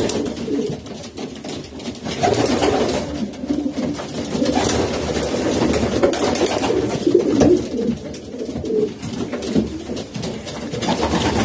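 Racing pigeons cooing without a break, the low coos overlapping.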